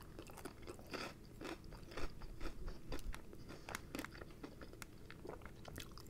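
Close-miked chewing of fried chicken, with a scatter of small crunches and wet clicks from the breading.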